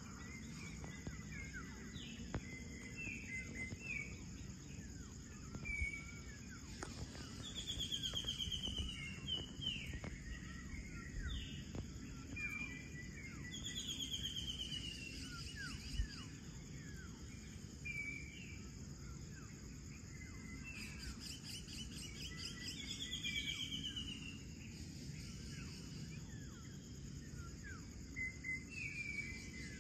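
Dawn chorus of birds over a steady high insect drone. It is full of short falling chirps and calls, with a fast falling trill that comes back every several seconds. A low rumble lies underneath.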